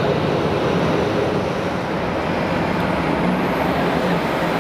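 Jet engines of a Boeing 737-300 (CFM56-3 turbofans) running as the airliner taxis onto the runway: a steady, loud rumble and hiss. A faint high whine rises about three seconds in.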